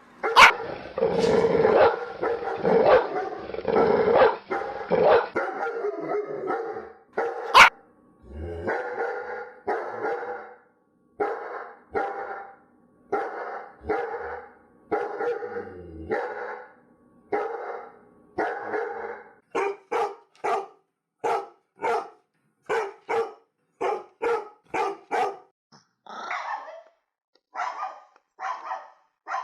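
Dogs barking repeatedly. The first few seconds are a dense run of overlapping barks; after that come separate barks about once a second, quickening to about two a second in the second half. There are two sharp clicks, one right at the start and one about seven seconds in.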